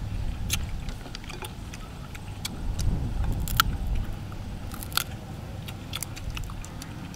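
Irregular clicks and crackles of cooked giant freshwater prawn shells being pulled apart by hand, with eating sounds.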